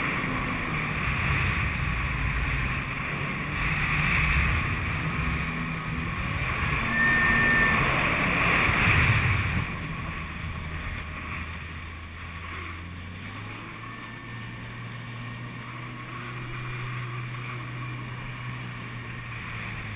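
Kawasaki Ultra 300LX jet ski's supercharged four-cylinder engine running under way, mixed with wind rush and splashing water. About halfway through it eases off and settles to a steady low idle hum.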